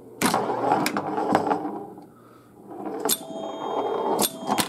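1973 Gottlieb Home Run electromechanical pinball machine in play: the ball rolling across the playfield, with several sharp clacks from the flippers, kickers and relays.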